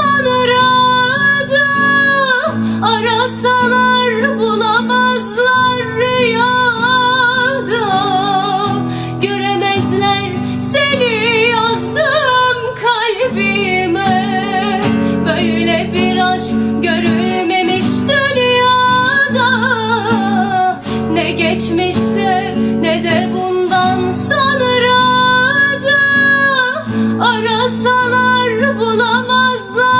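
A woman singing a Turkish song with a strong wavering vibrato, accompanied by guitar.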